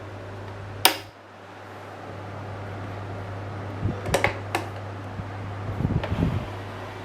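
1997 National F-MN305 12-inch table fan's capacitor motor running with a steady hum. A sharp click comes about a second in, and a cluster of knocks and rattles follows from about four to six seconds in as the fan head and neck are moved by hand.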